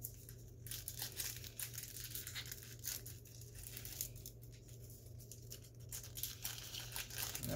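Foil wrapper of a Topps Big League baseball card pack being torn open and crinkled by hand: a dense crackle that eases off for a moment a little past the middle, then picks up again. The pack is opening awkwardly.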